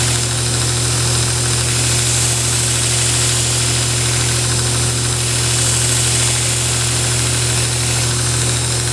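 Grizzly knife buffer/grinder's belt sander running with a steady motor hum while a steel broadhead is ground against the moving abrasive belt. A continuous grinding hiss rides over the hum as the blade's edge is sharpened.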